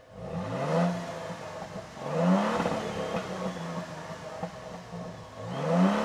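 2022 Toyota Tundra TRD Pro's i-FORCE MAX twin-turbo V6 hybrid engine revved three times at a standstill, heard at its twin exhaust tips. Each rev climbs quickly in pitch and then falls back.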